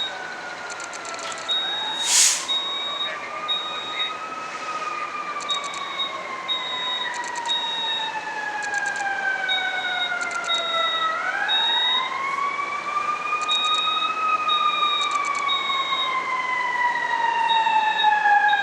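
Fire engine siren wailing, rising and falling slowly in pitch and growing louder toward the end, over the building's fire alarm sounding a high beep in repeating groups of three. One short loud blast about two seconds in.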